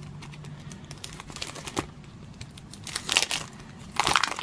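Paper sticker sheet crinkling and rustling as fingers peel a sticker off its backing, with louder rustles about three seconds in and again near the end.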